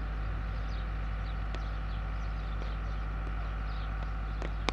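Steady low electrical hum under a faint outdoor background with scattered high chirps; about four and a half seconds in, a single sharp knock of a cricket bat striking the ball.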